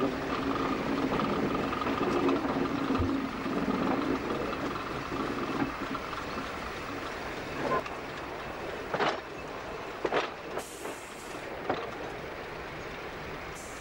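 Diesel multiple unit rolling slowly, heard from an open window. A steady engine and transmission hum is strong for the first few seconds, then eases, and the wheels clack sharply over pointwork and rail joints four or five times in the second half.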